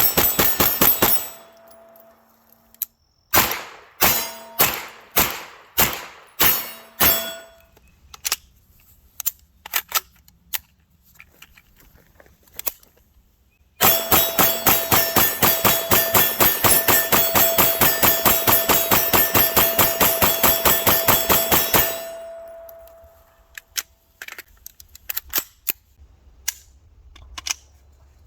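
Palmetto State Armory AK-V 9mm pistol firing semi-automatic: a fast string ends just after the start, then about eight slower shots roughly two a second, and after a pause a long rapid string of dozens of shots at about five a second for some eight seconds. A metallic ring hangs under the shots, as from struck steel.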